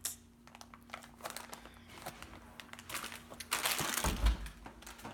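Crinkling of a plastic candy wrapper in short, scattered crackles. About three and a half seconds in comes a louder rustle with a low bump as the camera is handled and moved.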